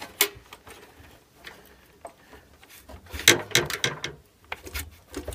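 Metal motor clamp in an RV furnace being worked by hand down over the blower motor's electrical plug: scattered clicks and scrapes of metal and plastic, with a sharp click at the start and a quick run of knocks about three seconds in.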